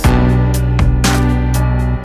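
Background instrumental music with guitar and a steady rhythm.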